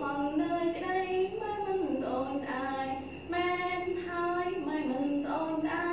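A woman singing a melodic Khmer verse with long held notes and sliding pitch.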